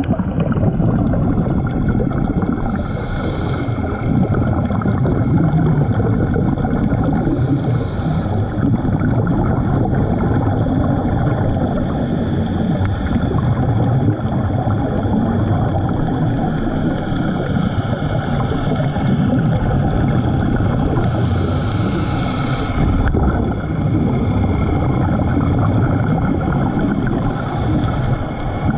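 Muffled underwater sound picked up through a dive camera housing: a steady low rumble, with a diver's scuba regulator breathing and its bubbles coming back every four to five seconds.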